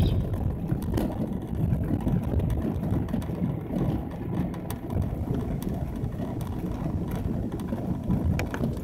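Chevy S10 pickup's engine and tyre noise heard from inside the cab while driving, a steady low rumble with a few light clicks and rattles.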